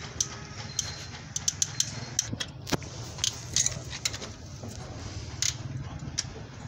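Irregular metallic clicks and clinks of a spanner working on the camshaft gears of an open Toyota 5A-FE engine, over a steady low hum.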